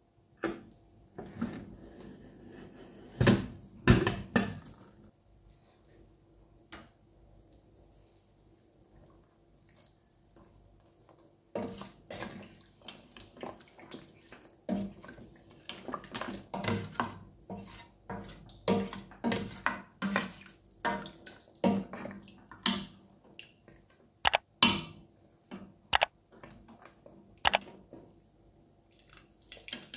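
Metal ladle stirring lamb trotters in broth in an open pressure cooker: repeated clinks and scrapes of the ladle on the pot, with liquid sloshing and dripping. A couple of loud metal knocks come about three and four seconds in.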